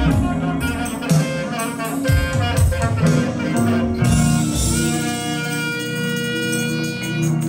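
Live band playing, drums and bass driving the tune until about four seconds in, then the band holding a long sustained chord.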